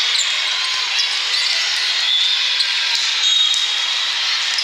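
Steady din of a big hall full of indoor volleyball play: athletic shoes squeaking on the court, with scattered sharp ball hits over a dense background hum of the crowd.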